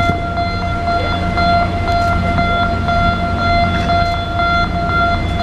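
Steady machine whine holding one pitch, over a constant low rumble.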